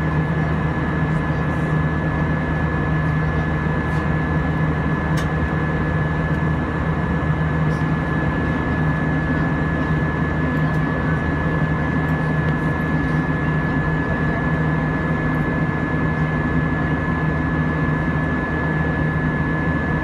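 Cabin noise of an Airbus A320 with IAE V2500 turbofans, heard over the wing while climbing out: a steady drone of engine and rushing air with a thin, steady high whine above it.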